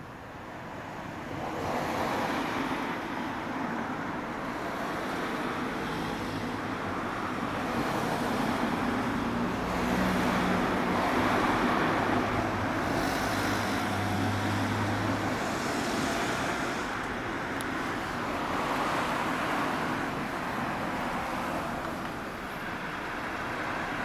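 Road traffic passing by, a steady wash of car noise that swells and fades over several seconds.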